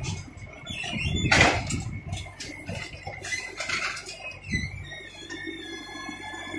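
Scrap metal clattering and crashing as an excavator's attachment works a scrap pile, the loudest crash about a second and a half in and a dull thump near the middle. A steady high whine runs underneath.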